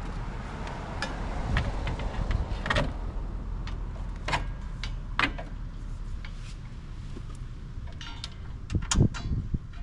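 Scattered metal clicks and clanks of a steel bash bar and its bolts being handled and fitted to the front of a car, the loudest knocks coming near the end.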